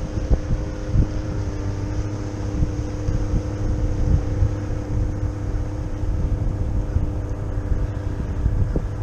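Wind buffeting the microphone in gusts, with a steady low hum underneath.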